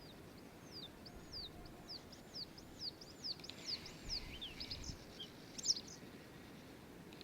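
A songbird singing: a run of about ten quick, high arched notes that come faster as they go, followed by a few short chirps.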